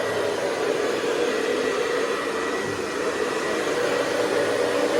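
Hoover Convertible model 704 upright vacuum running steadily, its motor giving the even hum its owner calls a purr, with a held low whine and no high-pitched scream.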